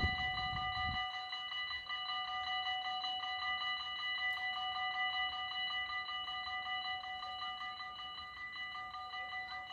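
Dutch AHOB level-crossing warning bells ringing in a fast, steady, unbroken rhythm. The low rumble of a passing train dies away about a second in.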